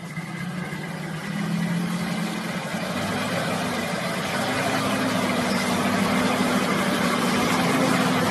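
Lifted Hummer's engine running at low, steady revs as it crawls through deep mud, growing gradually louder as it comes closer, with a slight rise in pitch about three seconds in.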